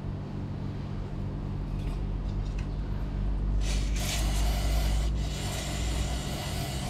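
Aerosol brake parts cleaner sprayed through its straw into a scooter's final-drive drain hole: a hissing spray starting about halfway through, lasting about a second and a half, then a second spray and a few short bursts near the end, over a steady low hum.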